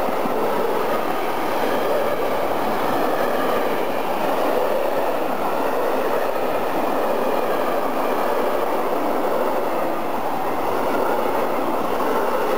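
A freight train's empty flat wagons rolling past close by: a steady, even noise of steel wheels running on the rails.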